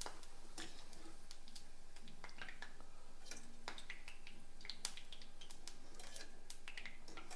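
Light, irregular clicks and scrapes of a metal spoon against a frying pan as fried potato is lifted out of the oil, over a faint steady hiss.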